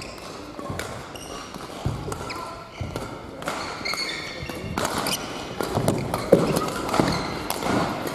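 Badminton rally: sharp racket strikes on the shuttlecock at irregular intervals, mixed with short high squeaks of court shoes on the floor and footsteps. The hits come thicker and louder in the second half.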